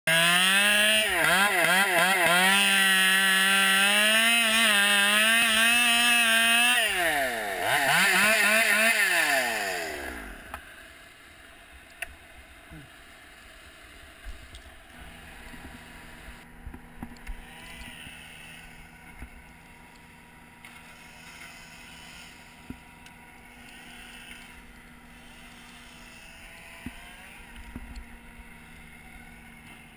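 Chainsaw engine running at high revs with its pitch wavering. It drops off briefly, revs up again, then winds down and stops about ten seconds in. After that only faint low hum and a few scattered ticks remain.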